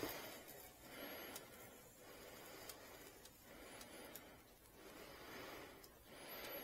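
A person breathing quietly close to the microphone in slow, even breaths, with a faint high whistle on a few of them.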